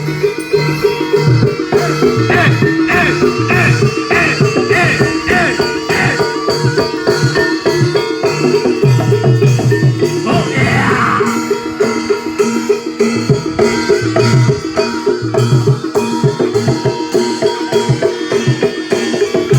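Live Javanese barongan accompaniment: drums with repeating struck pitched percussion over recurring low notes, playing a steady rhythm. A short falling tone sounds about halfway through.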